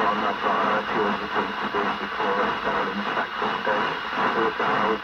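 A distant station's voice coming through a CB radio's speaker on FM, thin and muffled over a steady hiss, with words too garbled to make out: long-distance skip reception on UK CB channel 22.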